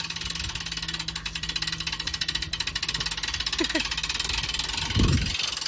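Hand-cranked boat trailer winch ratcheting in rapid, even clicks as the boat is winched up onto the trailer, over a low steady hum, with a low thump about five seconds in.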